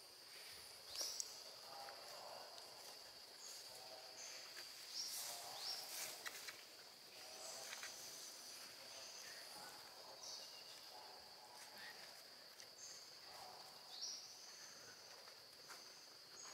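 Faint jungle ambience: a steady high-pitched insect drone, with a few short rising chirps and scattered rustling clicks.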